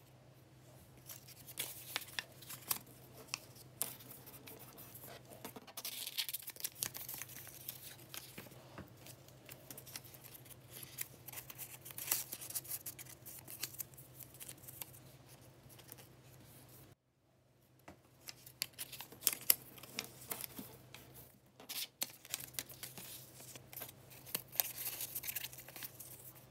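Paper rustling and crinkling as a small paper envelope is folded and creased by hand and a small card is slid into it, with small taps and clicks; the handling stops briefly about two-thirds of the way through.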